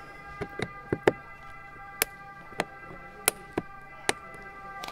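About nine sharp, irregular clicks of a flat screwdriver working against the plastic courtesy-light housing and door trim while prying the light out. A faint steady hum of several fixed tones runs underneath.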